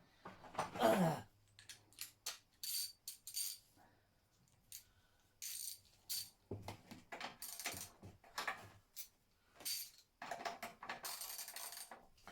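Metal hand tools clinking and rattling on the petrol tank's mounting bolts: a string of short, irregular metallic knocks and jingles with a bright ring.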